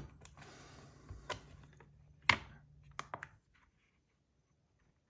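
A handful of sharp clicks and knocks from handling a heavy stainless-steel fidget and setting it on a scale to be weighed, the loudest about two seconds in, then near silence for the last part.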